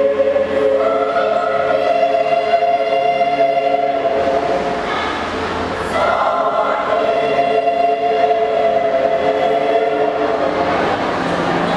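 School choir singing long held chords in harmony, in two phrases with a short break about four to six seconds in; the closing chord ends near the end.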